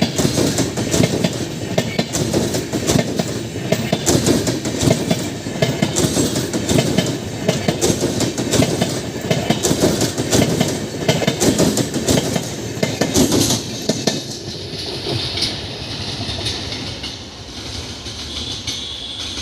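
Poorva Express passenger train rolling past at speed, its wheels clattering rapidly over the rail joints. About fourteen seconds in the clatter thins out and the sound fades away as the train moves off.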